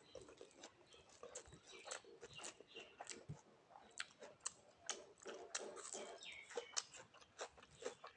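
Faint close-up eating sounds: a person chewing a meal of rice, fish and fried vegetables, with many irregular wet mouth clicks and smacks.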